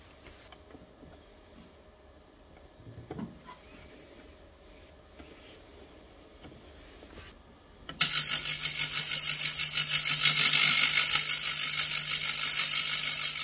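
Elma Elmasonic S 10 H ultrasonic cleaner being switched on: a few faint clicks of its knobs being set, then about eight seconds in the ultrasonic starts suddenly with a loud, harsh hiss-like buzz over a steady low hum, the transducers cavitating the cleaning bath.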